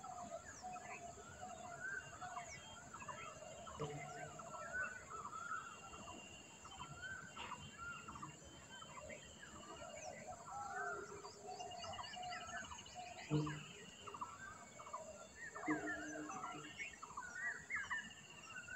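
Faint chorus of small birds chirping and singing, with a fast trill about two-thirds of the way through. A couple of soft knocks, the louder one about two-thirds through.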